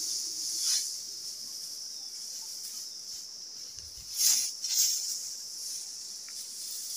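A steady high-pitched insect chorus, with dry rice straw rustling a few times as bundles are carried and thrown onto a straw stack. The loudest rustles come about four and five seconds in.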